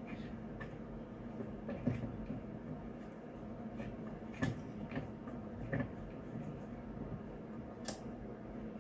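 Scattered light clicks and knocks, about six of them, from hands and a screwdriver working screws into a sprinkler's cover, over a steady low hum.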